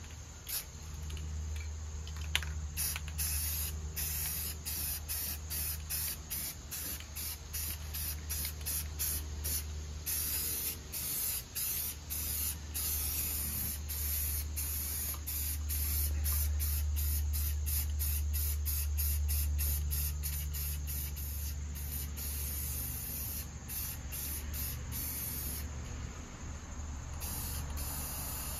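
Aerosol spray-paint can spraying red paint in many short bursts over a welded repair on a mower deck frame, with a steady low hum underneath.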